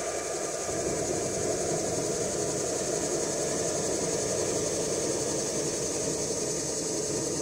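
G-scale model freight cars rolling over garden track: a steady rolling rumble of wheels on rail, with a steady high hiss under it.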